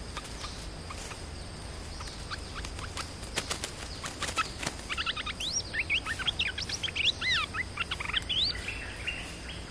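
A caged decoy bird calls in a quick string of short whistled notes, each rising or falling, starting about halfway through and stopping shortly before the end. Before that there is a scatter of sharp clicks and ticks.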